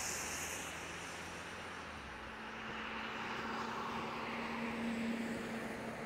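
Road traffic on a snowy, slushy road: tyre hiss from a passing car, fading after the first second, then a faint steady vehicle hum that swells near the end.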